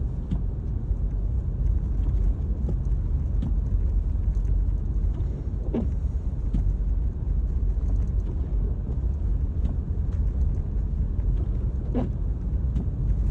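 Car driving on a snowy road, heard from inside the cabin: a steady low rumble of engine and tyre noise. A brief short sound comes about six seconds in and again near the end.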